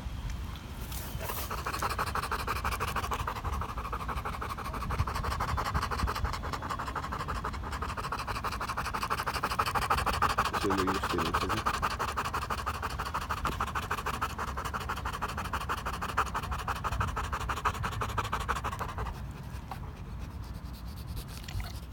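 A Cane Corso panting quickly and steadily, right at the microphone. The panting starts about a second in and stops a few seconds before the end.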